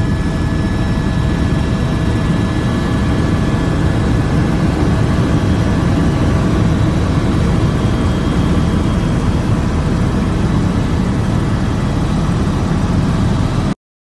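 Steady cabin noise of an aircraft in flight: a loud, even low rumble with faint whining tones above it. It cuts off suddenly near the end.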